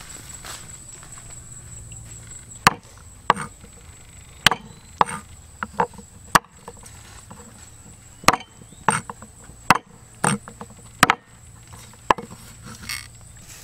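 Large knife chopping green vegetables on a round wooden chopping board: about a dozen sharp chops at an uneven pace, starting a couple of seconds in.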